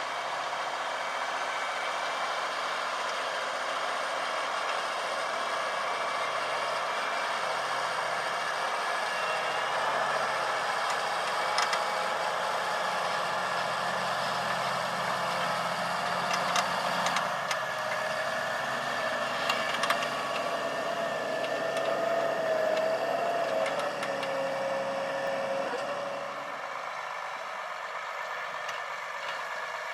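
John Deere 8335R tractor's diesel engine running steadily under load, pulling a nine-furrow plough. A whine wavers and falls in pitch in the second half, with a few sharp clicks, and the sound gets a little quieter over the last few seconds.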